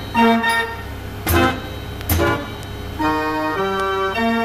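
Gavioli fairground organ playing a tune, with percussion strikes on the beat in the first half and then held chords.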